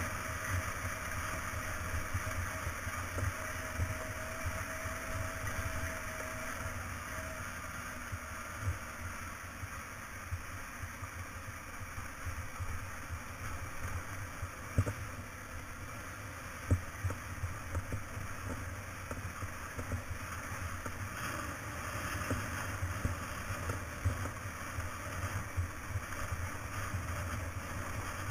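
Motorcycle running at a steady road speed, with wind rumbling on the camera microphone and a few sharp knocks from the ride over the gravel road.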